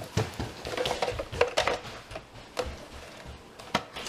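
Irregular light clicks and knocks of hard objects being handled, with no vacuum motor running.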